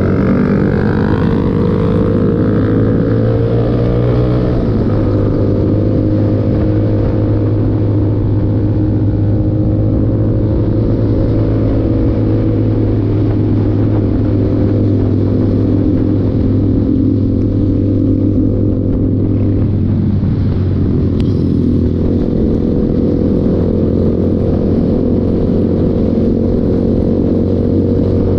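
Motorcycle engine running under way, heard close up from the bike, steady and loud. Its pitch changes twice, about a sixth of the way in and again about two-thirds through, as the throttle or gear changes.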